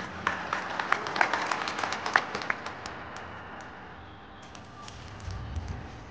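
Scattered hand clapping from a small audience of spectators: a quick run of irregular claps lasting about two and a half seconds, then a few more claps near the end.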